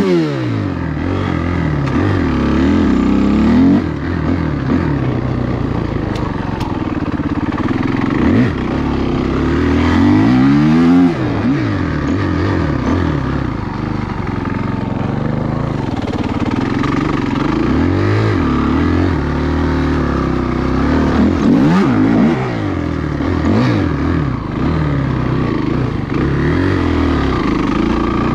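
Dirt bike engine running and being revved, its pitch climbing and dropping again and again as the throttle is opened and closed.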